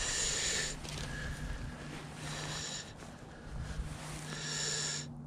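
A man breathing hard, three loud breaths about two seconds apart, winded after landing a fish.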